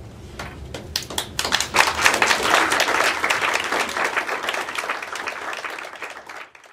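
Audience applauding: a few scattered claps grow into full applause within about two seconds, then it cuts off suddenly near the end.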